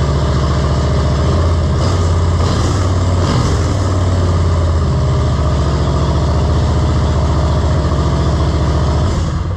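Harley-Davidson Softail's V-twin engine, breathing through a newly fitted Screamin' Eagle air intake, running steadily at idle. It fades away near the end.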